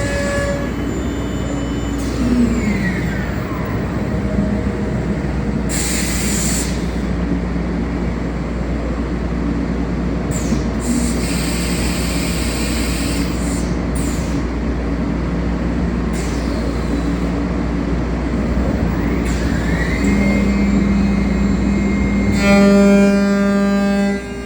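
CNC router running: a steady machine noise with a constant hum, and motor whines that slide down in pitch a few seconds in and back up near the end. Near the end a louder pitched whine with several overtones joins in.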